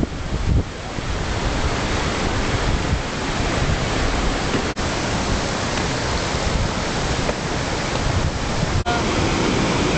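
Steady loud rushing of river rapids, mixed with wind buffeting the microphone; the sound drops out for an instant twice.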